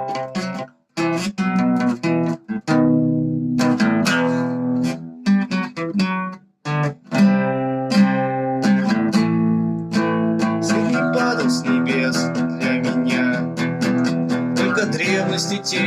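Acoustic guitar playing a song's instrumental intro: strummed and plucked chords broken by a few short stops early on, then steadier, fuller strumming from about ten seconds in.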